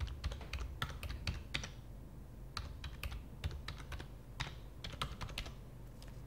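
Typing on a computer keyboard: quick, irregular key clicks that stop shortly before the end.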